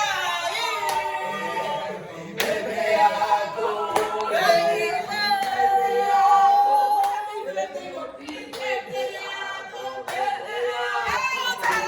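Several voices singing a song together in held, sliding notes, with a few hand claps.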